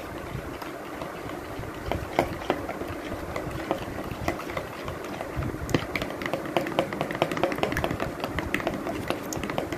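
A metal utensil stirring thick yogurt in a plastic bowl, with quick light clicks and scrapes against the bowl's sides and bottom. The clicks come faster and sharper about halfway through.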